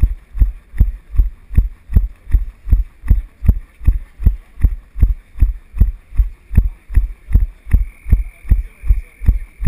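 A runner's footfalls jolting a body-worn GoPro, coming through as low, even thuds at about two and a half steps a second.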